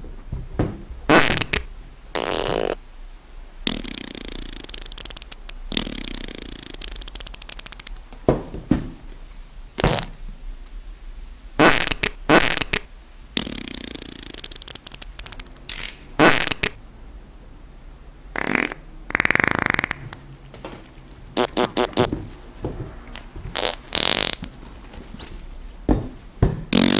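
A long string of fart sounds at irregular intervals: mostly short, sharp blasts, a few longer drawn-out ones, and a quick rattling run of several in a row about two-thirds of the way through.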